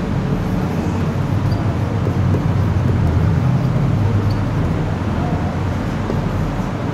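Steady low rumbling background noise with no clear strokes or rhythm.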